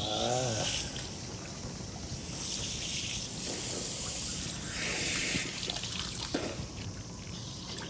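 Water from a shower nozzle on a garden hose spraying over a person's head and body and running down into a small inflatable paddling pool. The spray's hiss swells and eases several times.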